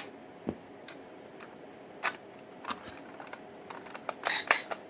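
Scattered sharp plastic clicks and knocks from a toy Glock pistol being handled as its silencer is put on, with a quick run of several clicks near the end.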